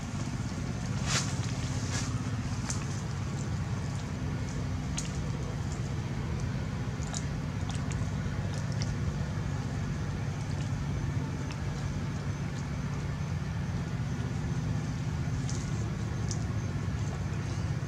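Steady low motor hum with scattered faint clicks and ticks.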